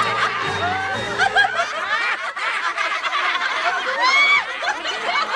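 A flock of sheep laughing: many overlapping bleating snickers and chuckles, with one louder laugh about four seconds in.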